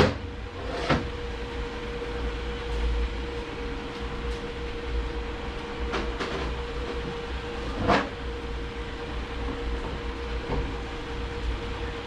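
Metal transmission parts knocking and clinking a few times as a tight-fitting drum and sprag are worked into place, the loudest knock near the end, over a steady hum.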